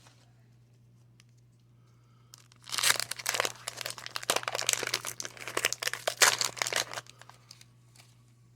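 Paper trading-card pack wrapper being torn open and crumpled, a crackly crinkling from about two and a half seconds in until about seven seconds.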